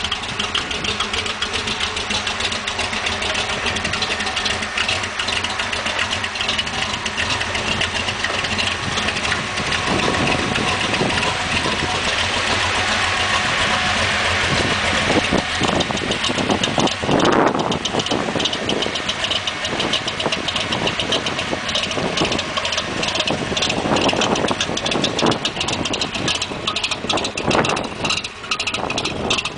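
The 350 cubic inch V8 of a Ford Popular gasser drag car idling steadily. It grows louder for a while in the middle as the car is circled.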